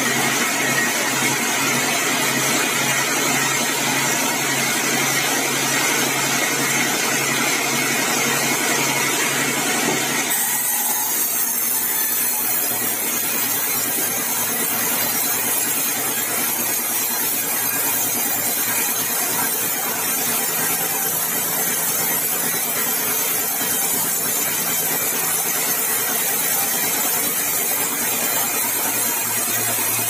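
Sawmill vertical band saw running, its motor humming steadily while the blade cuts through bengkirai timber. About ten seconds in, the high hiss of the cut thins out while the machine keeps running.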